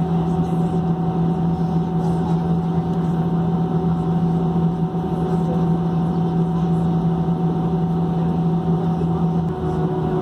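Airbus A319 taxiing, heard inside the cabin: the jet engines run at low thrust in a loud, steady drone with a strong low hum and fainter higher tones. The low hum wavers shortly before the end.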